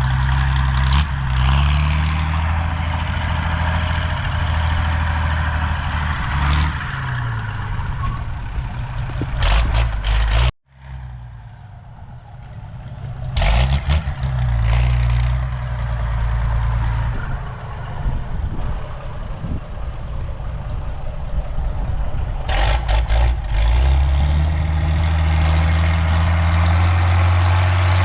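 Valmet 118 diesel tractor engine running through a straight-pipe exhaust, its speed rising and falling several times. The sound cuts out abruptly for an instant about ten seconds in, then the engine is heard again.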